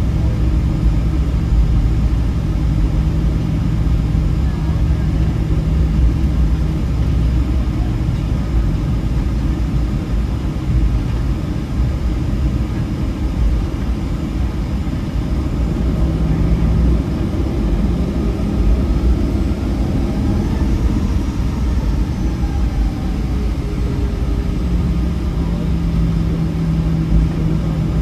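Steady low rumble and engine hum inside the cabin of a Boeing 737-800 with CFM56-7B engines, heard from a forward seat. A faint tone rises and falls about two-thirds of the way through.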